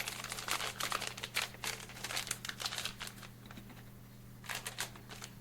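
Small plastic sachet crinkling as it is handled, with dense irregular crackling for about three seconds and a short burst again near the end. A steady low hum runs underneath.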